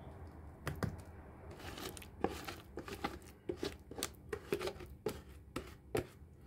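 Wire hand whisk clicking and scraping against plastic mixing bowls, irregular sharp taps two to three a second, as wet banana batter is folded into flour by hand.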